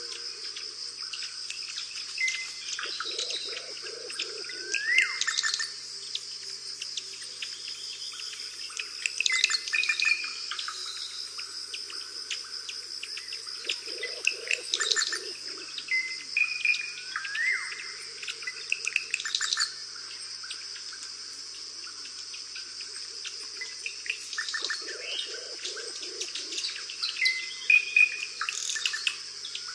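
Rainforest ambience: a steady high insect drone with birds chirping and calling over it, among them a rising whistle and a cluster of lower calls that recur about every twelve seconds, as in a looped nature recording.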